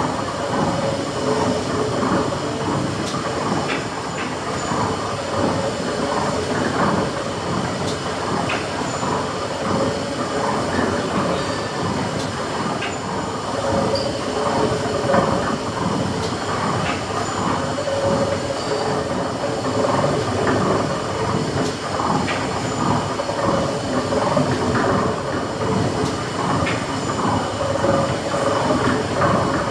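The Kempton Great Engine, a huge triple-expansion steam engine, running: a continuous mechanical clatter from its moving rods, crossheads and valve gear, with a faint tone coming back every few seconds.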